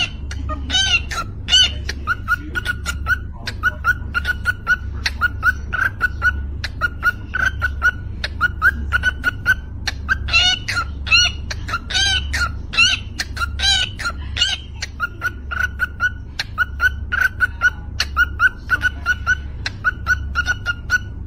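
Cockatiel making a fast, even rhythm of short chirps and clicks, like beatboxing, with louder rising-and-falling whistles near the start and again around the middle. A low pulsing hum runs underneath.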